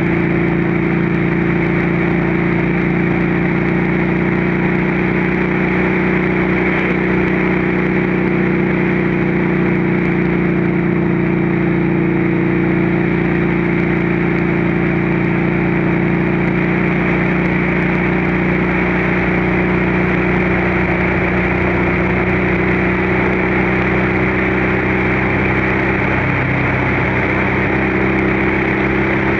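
Motorcycle engine and exhaust running steadily at cruising speed, mixed with a steady rush of wind noise.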